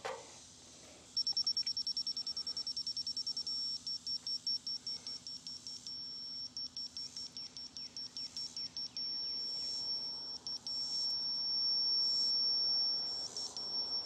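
Laser level receiver beeping as it is slid along a post to find the beam: rapid, evenly spaced high beeps, then a steady tone for about two seconds near the end. The steady tone signals that it sits on the beam's level line.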